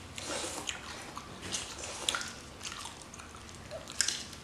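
Wet eating sounds as raw spicy crab and rice are eaten by hand: chewing and lip smacking with scattered short clicks, the sharpest about four seconds in.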